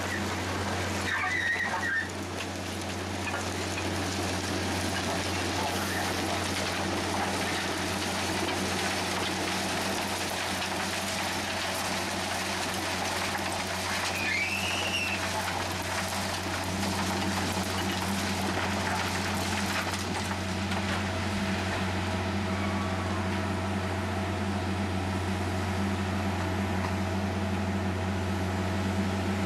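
Diesel engines of a slow-moving track-maintenance train (ballast regulator and track machine) running steadily with a low hum, over a constant hiss as the ballast is ploughed and swept. A brief squeal rises and falls about halfway through.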